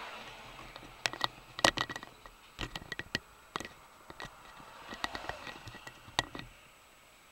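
A series of irregular sharp clicks and light knocks close to the microphone, some ringing briefly, over faint steady cab noise.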